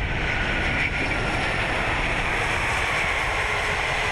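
Airbus A380 touching down: a steady rushing of air and jet engine noise, with its four engines throttled back to idle.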